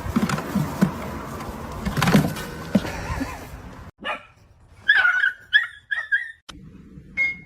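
A dog giving four short, high yips in quick succession about five seconds in, after a stretch of rustling and knocks.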